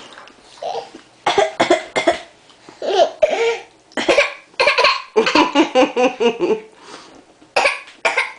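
A baby fake coughing: a string of short, forced coughs, some in quick runs, a few of them voiced.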